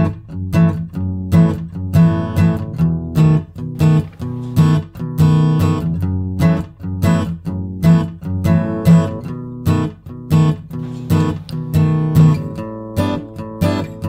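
Background music: acoustic guitar with plucked and strummed notes at a steady, even pace.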